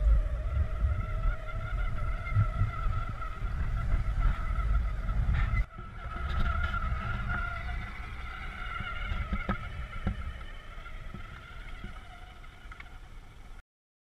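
Battery-powered Yamaha Raptor toy ATV's electric motor whining steadily over a low rumble. The level drops sharply about six seconds in, then fades and cuts off near the end.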